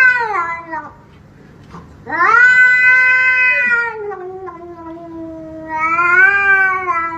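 Domestic cat yowling in long, drawn-out calls that rise and fall in pitch: one ends about a second in, a long one starts about two seconds in, and another begins near the end.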